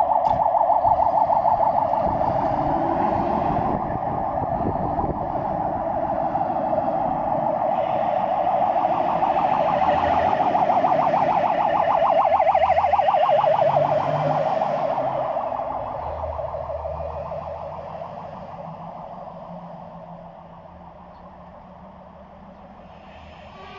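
Scania P400 fire engine's siren switching on suddenly and sounding continuously with a fast warble as the truck sets off on an emergency run, its diesel engine rumbling beneath. The siren stays loud through the middle as the truck passes close by, then fades as it drives away.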